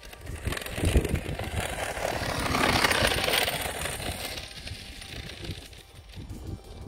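Traxxas X-Maxx RC monster truck's brushless electric drivetrain running, with a rattling, grinding clatter from its damaged front diff crown and pinion gears. It swells for a couple of seconds and then fades as the truck drives away, with a thump about a second in.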